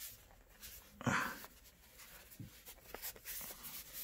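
Faint handling sounds of a plastic massage gun as its handle battery is pried loose by hand, with light clicks and one brief louder noise about a second in.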